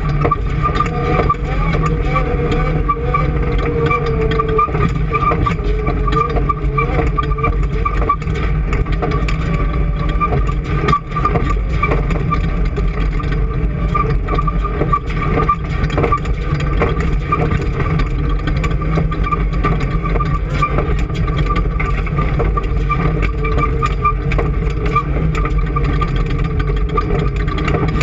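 A car engine running without let-up: a steady whine over a low rumble, with one brief dip about eleven seconds in.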